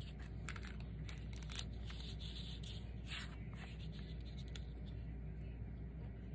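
Soft rustling and light taps of eyelet fabric and a card-mounted paper picture being handled and smoothed on a cutting mat, over a steady low background hum.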